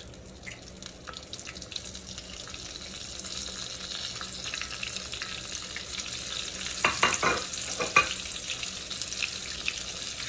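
Breaded chicken nuggets deep-frying in hot oil on their second fry, a steady sizzle that grows louder as the oil bubbles up around them. A cluster of sharp knocks about seven to eight seconds in.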